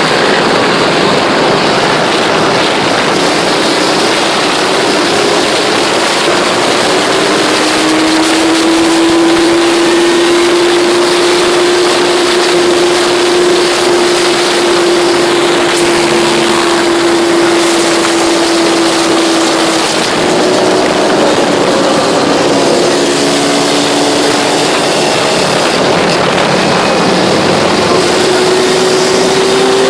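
ATV engines running steadily at riding speed, with heavy wind rush on the microphone. The engine note drifts slowly up in pitch, and more than one engine note is heard in the second half.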